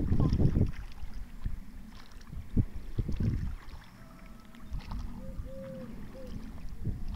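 A single wooden paddle dipping and pulling through the water as a coracle is paddled along, with a few splashes and swirls. A louder low rush of wind on the microphone comes in the first second.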